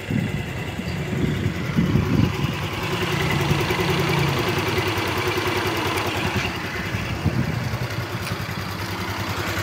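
Honda Vario 150 scooter's single-cylinder engine idling steadily, with the slightly rough sound that the mechanic finds typical of the 2021-on models.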